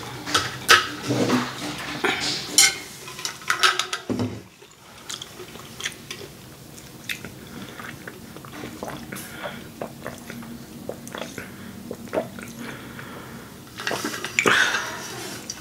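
Long drink from a large insulated Coldest water bottle. The bottle is handled with clicks and knocks over the first few seconds, then come about ten seconds of quiet swallowing with faint small clicks, and a louder burst of noise near the end.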